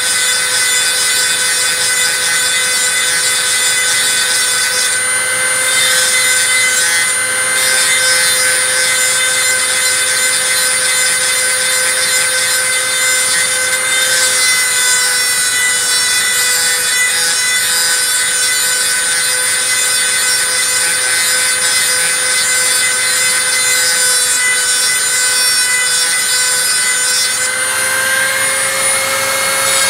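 Dremel rotary tool running at high speed with a small grinding stone bit against a metal ring held in pliers: a steady high whine over a gritty grinding hiss. About two seconds before the end the whine steps up slightly as the bit comes off the work.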